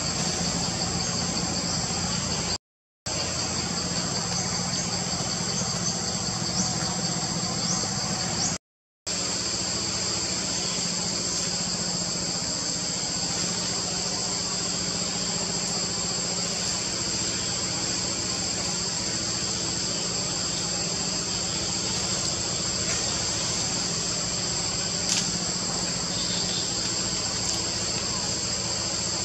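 Steady forest insect chorus, a continuous high buzzing hiss, over a steady low hum. The sound cuts out to silence twice, briefly, about three and nine seconds in.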